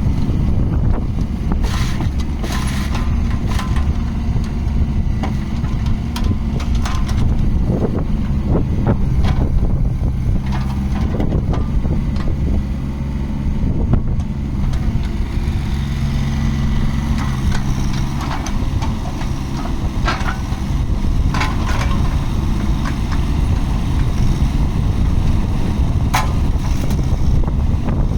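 Yanmar SV15 mini excavator's diesel engine running steadily, with scattered knocks and clanks from the machine at irregular moments.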